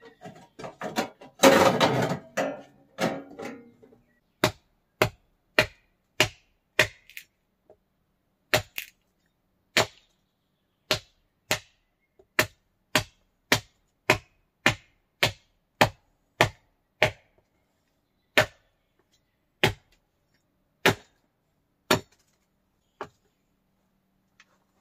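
A hand tool striking wood again and again: a run of about two dozen sharp knocks, roughly two a second, slowing to about one a second near the end. Before the knocks start there are a few seconds of denser mixed noise.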